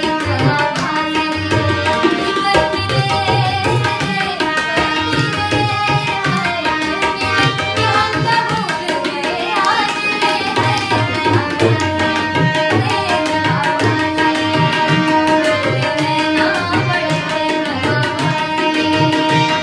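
Tabla playing a steady rhythm, deep bass-drum strokes under crisp treble-drum strokes, over a harmonium holding sustained chords. It is an instrumental accompaniment passage in Indian classical style.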